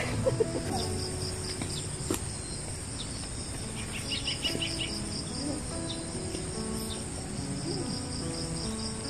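Insects chirring steadily in a fast pulsing rhythm over a constant high whine, with a short run of quick chirps about four seconds in. Soft background music sits underneath.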